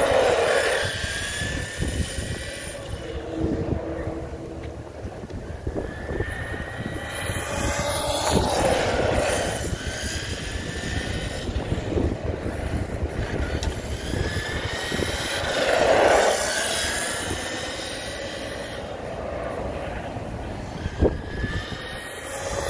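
Arrma Kraton 6S RC truck's brushless motor whining, rising in pitch as it accelerates, then easing off, several times over, with a rumble under it. It sounds down on power, which the owner takes for some sort of issue since the truck won't lift its front end.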